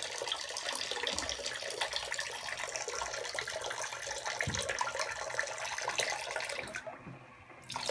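High-end electronic toilet flushing: a steady rush of water that starts abruptly and dies away about seven seconds in.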